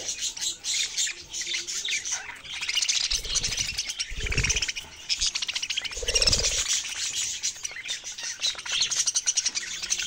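A flock of caged budgerigars chattering, with dense, continuous high chirps and squawks. Three brief low fluttering bursts of wings come through it, the loudest about six seconds in.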